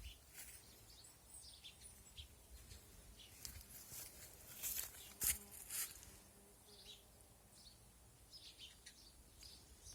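Faint outdoor ambience with scattered short bird chirps, and a few sharp clicks about five seconds in.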